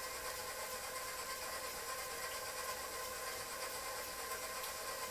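Electric mixer running at a steady speed, a constant motor hum with a faint whine, blending the wet ingredients of a cake batter.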